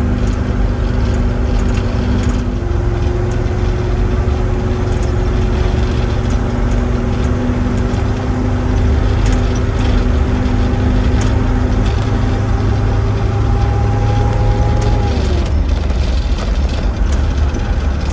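A vehicle's engine running under way over steady road rumble, with scattered light clicks. The engine note steps up about three seconds in and falls away about fifteen seconds in as the vehicle slows.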